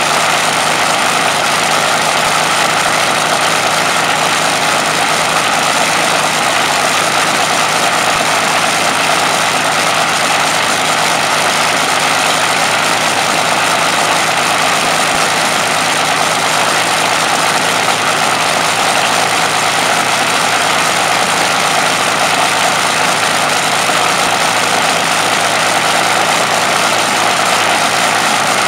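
Rolls-Royce Merlin V12 aero engine on a static test stand, running steadily and loudly at a constant speed, with its propeller spinning, and no change in pitch.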